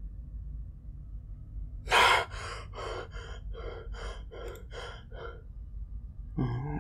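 A person gasps sharply and loudly, then pants in a run of quick breaths, about seven over some three seconds: the sound of someone jolted awake from a nightmare.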